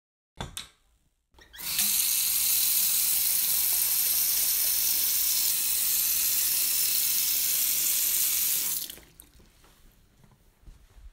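Bathroom sink tap running, water pouring into the basin and over cupped hands as a face is washed. A short knock comes about half a second in, then the water runs steadily for about seven seconds and stops.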